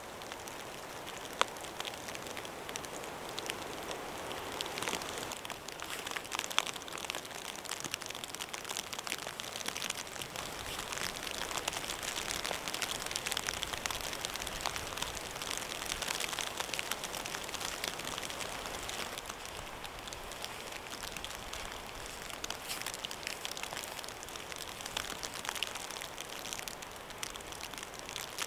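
Sleet falling and pattering steadily in many fine ticks. Two sharper clicks stand out, about one and a half and six and a half seconds in.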